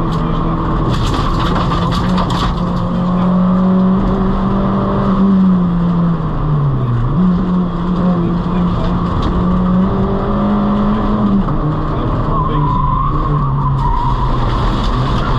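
Peugeot 206 rally car's engine heard from inside the cabin, running hard at high revs; the revs fall and jump back up about seven seconds in and step down again past eleven seconds, as with braking and gear changes for corners. A short tyre squeal comes around thirteen seconds in.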